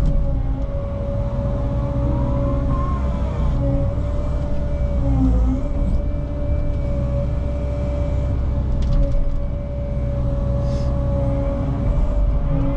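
Cat 306 mini excavator's diesel engine and hydraulics running steadily, with a rumble under a steady high whine that rises and falls briefly a couple of times as the machine works.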